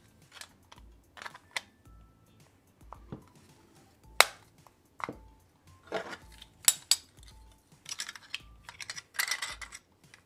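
Clicks and knocks of a scale-model car body shell being handled and fitted in gloved hands, the sharpest knock about four seconds in, a quick pair of clicks near seven seconds, and a short scraping rub near the end. Soft background music with a steady low beat underneath.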